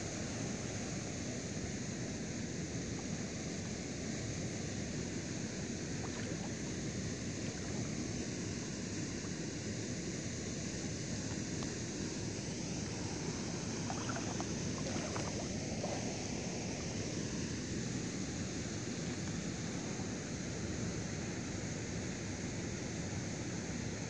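Steady outdoor ambience over open lake water: wind on the microphone with water lapping.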